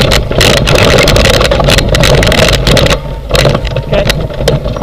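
Wheels and frame of a husky-drawn dryland rig rolling over a rough dirt trail: a loud, steady rumble with many rattles and knocks, easing slightly about three seconds in.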